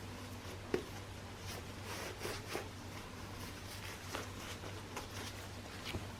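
Small handling noises: scattered light taps, scrapes and rustles, with a sharper tap just under a second in, over a steady low hum.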